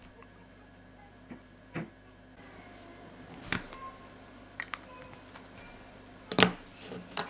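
Felt-tip marker handled on a table: faint scratching of the tip on paper and a handful of light clicks and taps as the cap is put on and the marker is set down. The loudest tap comes about six seconds in.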